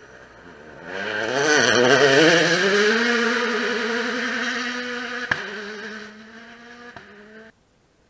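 2017 World Rally Car, with its 1.6-litre turbocharged four-cylinder engine, passing at full speed. The engine note swells suddenly, wavers and dips, then climbs and holds steady as the car pulls away and fades. There is a sharp crack about five seconds in and a smaller one near the end, and the sound cuts off suddenly.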